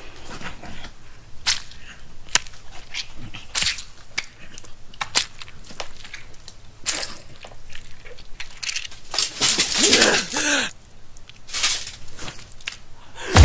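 Horror-film gore sound effects of a creature feeding on a man: an irregular run of sharp cracks and snaps, with a short strained vocal sound about ten seconds in.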